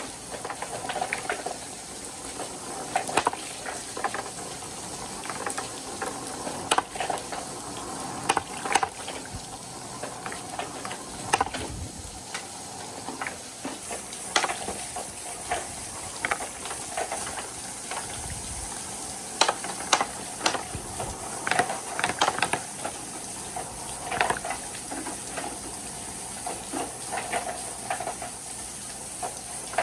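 Water running steadily down rain-gutter chutes while painted wooden balls roll along them, knocking sharply against the gutters at irregular moments.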